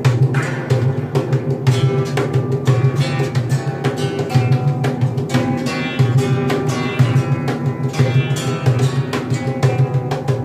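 A handmade space drum harp being plucked and struck by several hands, giving many quick ringing string notes over a steady low drone.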